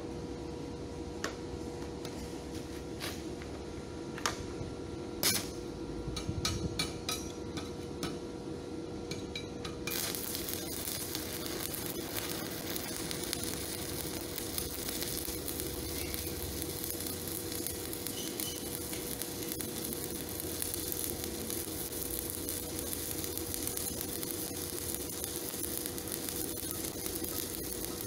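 Stick (shielded metal arc) welding: a few scattered clicks and taps, then about ten seconds in the arc strikes and crackles and sizzles steadily as the electrode burns, over a steady hum.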